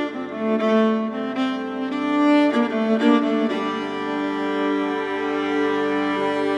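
Background music on bowed strings: a run of changing notes for the first three seconds or so, then a held chord.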